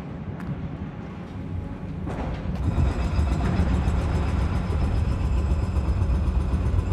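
Wind buffeting the microphone: a low, irregular rumble that grows louder about two and a half seconds in.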